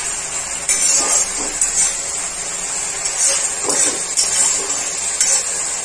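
Onion-tomato masala frying in oil in a steel kadai: a steady sizzle with brief louder spurts now and then. The oil has separated from the masala.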